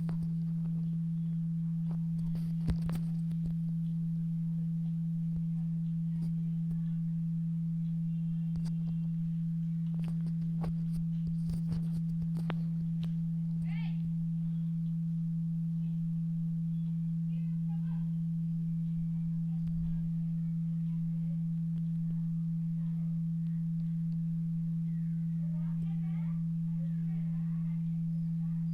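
Phone loudspeaker playing a steady low pure tone at one unchanging pitch, generated by a speaker dust-remover app in manual cleaning mode to vibrate dust and water out of the speaker.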